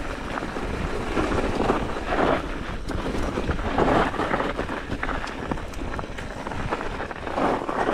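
Mountain bike riding down a rocky, rutted trail: tyres rolling over stones, with frequent small knocks and rattles from the bike, under steady wind rumble on the microphone.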